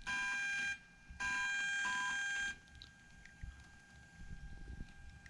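Electronic prompt tones from the BT201 Bluetooth audio module played through its speaker: a short steady beep, then a longer one of about a second and a half, as the module switches mode. Faint handling noise follows.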